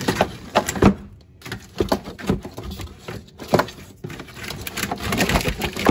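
A golf-cart wiring harness in plastic loom being pulled and worked loose by hand, making irregular rustles, scrapes and clicks of wire and plastic rubbing against the body panels.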